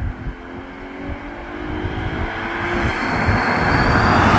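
Car engine running steadily, then a rising rush of engine and road noise that grows steadily louder over the last couple of seconds as the car accelerates for a 0–100 km/h run. A faint high whine climbs briefly near the end.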